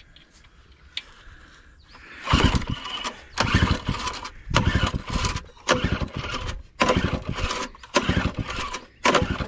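Small engine of an old 900-watt generator being pull-started with the choke closed: starting about two seconds in, about seven pulls on the recoil starter, roughly a second apart, each turning the engine over without it catching.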